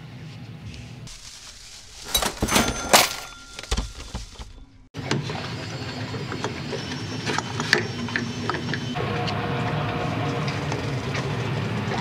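Sharp metal clicks and clinks of hands and a screwdriver working on a stainless shore-power inlet fitting, which is being removed because of a burned contact. Behind them runs a steady mechanical hum, and the sound changes abruptly midway.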